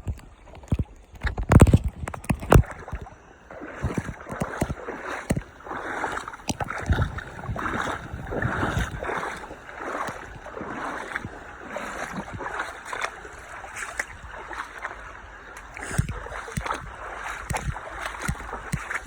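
Mountain valley stream water flowing and gurgling, with some splashing. A few loud low thumps come about two seconds in.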